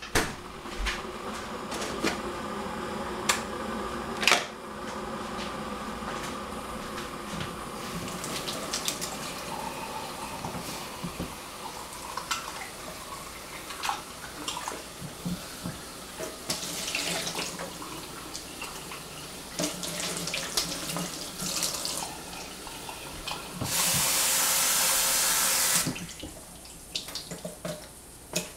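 Kitchen tap running water into a sink, with scattered clinks of dishes and utensils being handled. Near the end the water rushes louder and evenly for about two seconds, then stops suddenly.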